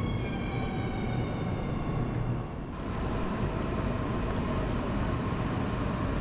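Siemens Desiro HC electric train (RRX) moving along the platform, its traction motors whining in a stack of steady high tones over a rumble. About two and a half seconds in, the whine gives way to a steady rumble and a faint hum of the station platform as another train approaches.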